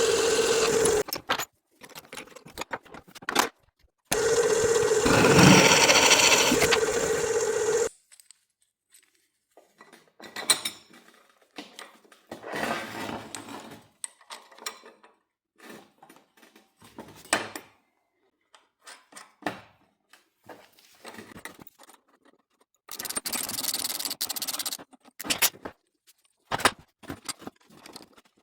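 A power tool's motor runs in three bursts of a few seconds each, with a steady tone. Between the bursts come scattered clinks and scrapes of metal parts and tools being handled.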